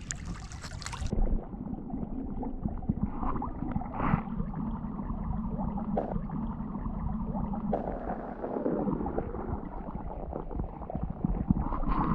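Shallow creek water gurgling and sloshing around a hand reaching into the gravel bed, with a few soft knocks. It sounds muffled from about a second in, as heard with the camera at or under the water surface.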